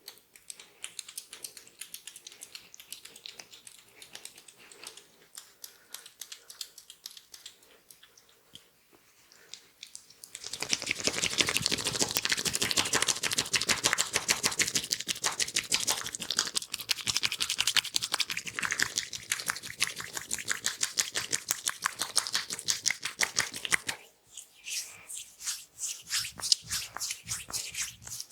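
Hands working oiled skin and hair in a close-miked head and neck massage. Quick light tapping and clicking at first, then from about ten seconds in a louder, dense crackling rub for some fourteen seconds, then quick taps again.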